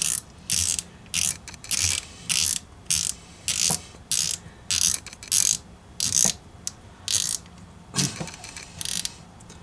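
Front drag knob of a PENN Fierce II spinning reel being twisted tight by hand. It clicks in short ratcheting bursts about twice a second, with a brief pause partway through.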